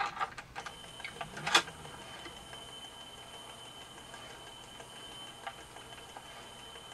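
A few handling clicks and one sharp click, then the small 4.5-volt DC motor of an animated ski slope running steadily with a thin high whine, turning its pulley and fabric belt without load.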